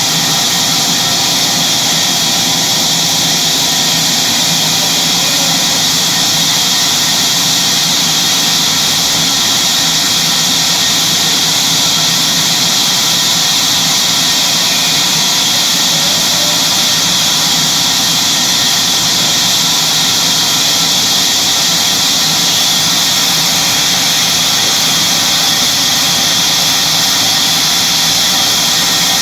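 Sawmill saw running continuously: a loud, even high-pitched whine and hiss that holds steady without a break.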